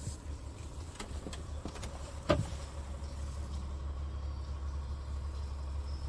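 Scania S tractor unit's diesel engine idling steadily, heard from inside the cab as a low hum. A few light clicks come about a second in, then a single sharp knock a little over two seconds in.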